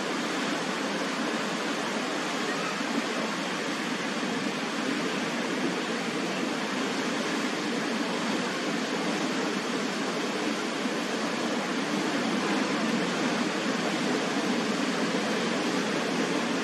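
Ocean surf breaking on a beach, heard as a steady, even rush of water noise.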